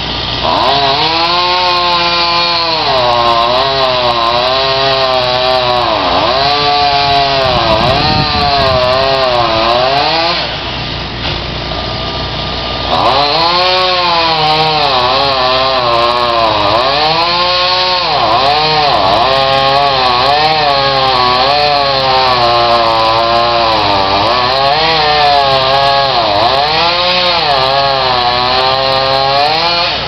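Chainsaw cutting wood, its engine pitch repeatedly sagging and recovering as the chain bites. It eases off to a lower, quieter running about ten seconds in and revs back up to cut again a couple of seconds later.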